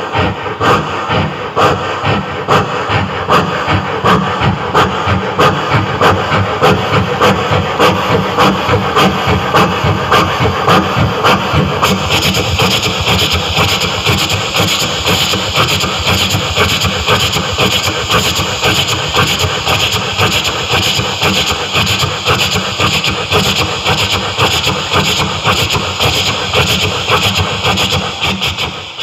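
A man's voice imitating a running steam train: steady rhythmic chugging puffs, with a strong hiss of steam joining in about twelve seconds in, fading out at the end.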